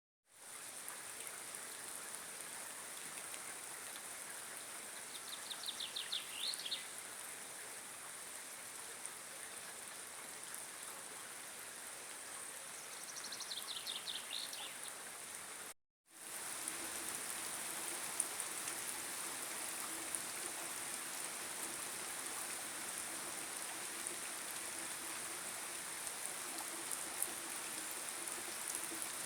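Steady rain falling in woodland, with a bird singing a short trill twice, about five seconds in and again around thirteen seconds. The sound cuts out for a moment about halfway, then the rain carries on a little louder.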